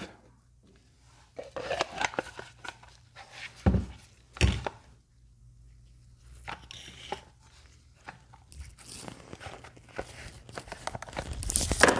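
Irregular knocks, clicks and rustling from parts and tools being handled, with two sharper knocks around four seconds in and a busier stretch of rustling near the end.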